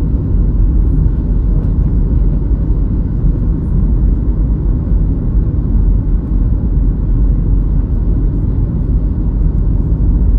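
Steady rumble of engines and airflow inside the cabin of a Boeing 737-700 on short final, with flaps extended for landing.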